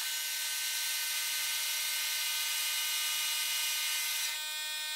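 Metal lathe running, its sound sped up sevenfold into a high buzzing whine made of many steady tones over a hiss. The tone changes about four seconds in.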